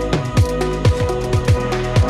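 Electronic background music with a steady deep kick drum about twice a second under held synth tones.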